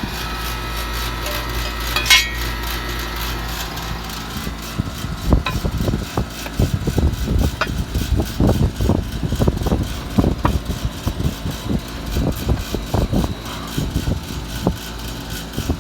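2002 Payne outdoor air-conditioning condenser running: a steady compressor hum and condenser fan. There is a sharp click about two seconds in and uneven low rumbling through the second half. Some call the sound rough, but it has always run this way, and the unit is worn out and barely cooling.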